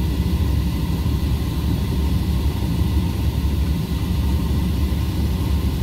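Volkswagen up!'s three-cylinder engine idling steadily, heard from inside the cabin as a low rumble, with the air-conditioning fan hissing.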